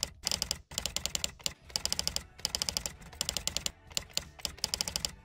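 Typing sound effect: runs of rapid key clicks broken by short pauses, keeping pace with text typed out letter by letter.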